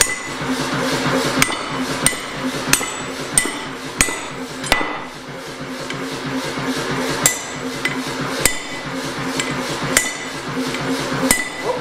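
Hand sledgehammer striking a handled punch held on a glowing steel hammer billet: sharp metal-on-metal blows, roughly one every half second to second, some with a brief ring. The strikes stop for a couple of seconds about midway, then resume.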